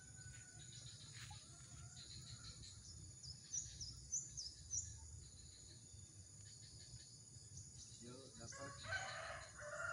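Quiet outdoor ambience with a low steady rumble, a run of short high bird chirps about four seconds in, and a distant rooster crowing near the end.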